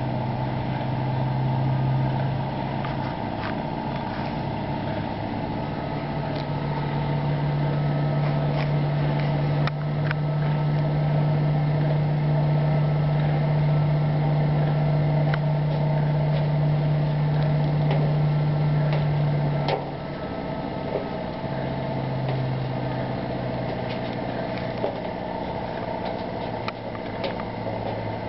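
An engine or motor running steadily with a low hum. The hum shifts in pitch and strength several times: it drops back about 3 s in, swells again near 6 s, and eases off around 20 s. Scattered light clicks and knocks come from the plastic pipe being handled.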